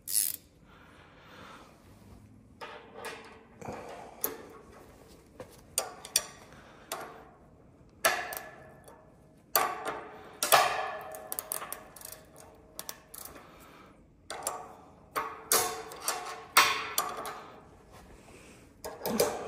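Ratcheting wrench clicking in short irregular spurts as the bolts holding a bench vise's base to a steel table are tightened, with metal-on-metal clinks against the steel table top, some followed by a brief ring.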